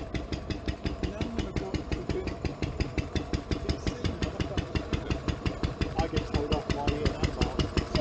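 A car engine idling with an even pulsing beat of about seven beats a second, with voices faint beneath it.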